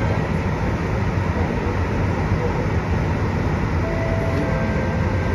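Steady low hum inside a Siemens C651 metro car standing at a station platform, from the train's onboard equipment, with no clatter of running.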